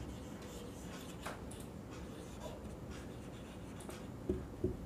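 Marker pen writing on a whiteboard: faint, short strokes as letters are drawn.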